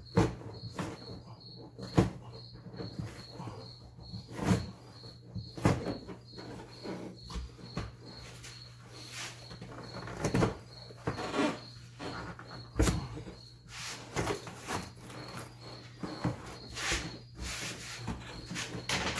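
Irregular knocks, thumps and rustling scrapes of car carpet and interior trim being tugged and pulled loose, with a cricket chirping steadily, a run of short high chirps, two or three a second, under it.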